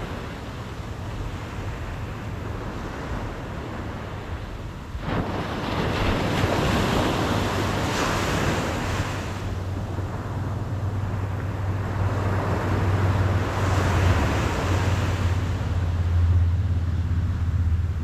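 Atlantic Ocean surf: waves breaking and washing up the beach, one coming in suddenly about five seconds in and others swelling later, with wind rumbling on the microphone.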